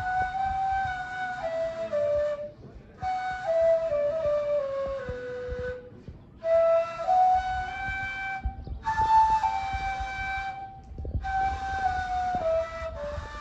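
Ney, the Turkish end-blown reed flute, playing a slow, breathy melody in phrases broken by short pauses for breath, each phrase stepping down in pitch, with a low rumble underneath.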